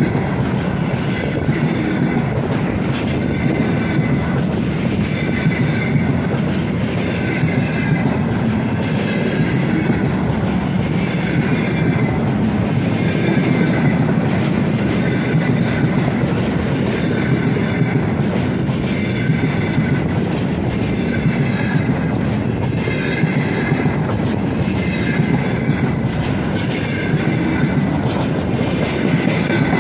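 Freight train's container flat wagons rolling past, a loud steady rumble of steel wheels on rail with clickety-clack. A faint squeal comes and goes every couple of seconds as the bogies pass.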